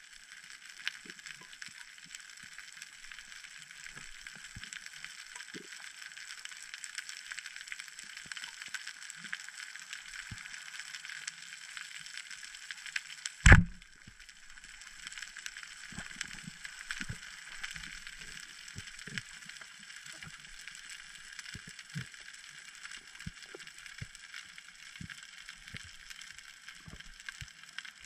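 Underwater reef ambience, a steady hiss full of tiny clicks, broken about halfway through by one loud, sharp crack of a speargun firing.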